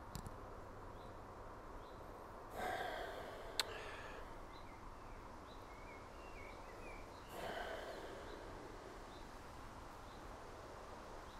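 A person sniffing beer in a glass held to the nose: two long sniffs about five seconds apart, with a sharp click just after the first. Faint bird chirps come and go.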